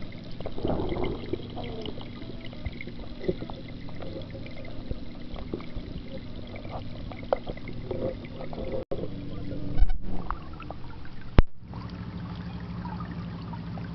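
Muffled pond water heard with the microphone underwater, sloshing and trickling over a steady low hum. A loud knock comes about ten seconds in and a sharp click a little after.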